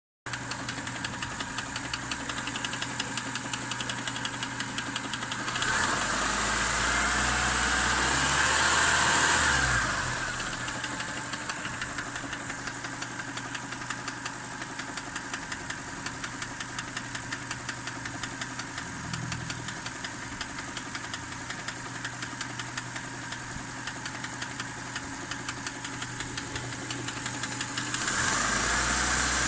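Subaru EJ20J 2.0-litre flat-four engine idling with a regular knock that keeps time with the engine. It is revved up twice briefly, about six seconds in and near the end. The cause of the knock is unknown to the owner.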